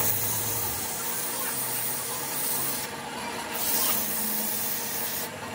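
Hand-held abrasive cloth rubbing against a steel hydraulic-cylinder part spinning on a lathe, a steady hissing scrape that swells briefly a few times: hand polishing of the freshly machined surface.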